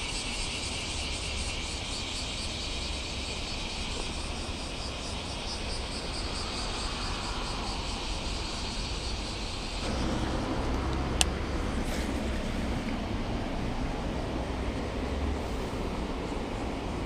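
Steady low rumble of wind and distant road traffic with a high, shimmering buzz over it that stops abruptly about ten seconds in. After that the rumble is a little louder, and a single sharp click sounds about a second later.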